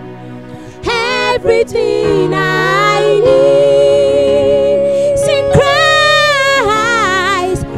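Women singing a slow gospel worship song into microphones; the voices come in about a second in and hold one long note through most of the rest.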